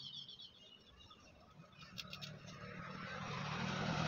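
A few high bird chirps at the start, then a motor vehicle approaching, its noise growing steadily louder toward the end.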